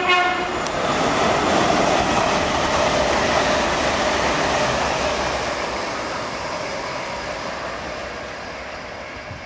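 An LNER Azuma high-speed electric multiple unit passing through the station at speed. It opens with a short horn blast, then a loud rush of wheel and body noise builds quickly and fades slowly as the train recedes, with a faint whine dropping slightly in pitch as it goes by.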